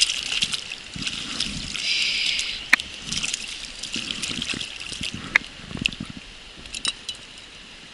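Water trickling and splashing, fading toward the end, with a few sharp clicks, the clearest about two and a half and five and a half seconds in.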